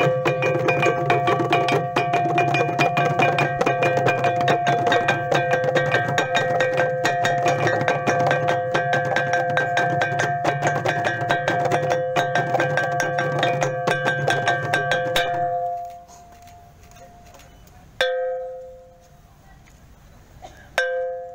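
Ensemble of small hand-held Timorese gongs (tala) beaten rapidly with wooden sticks, several ringing pitches overlapping in a fast, steady pulse. The playing stops about fifteen seconds in, followed by two single gong strikes a few seconds apart, each left to ring and fade.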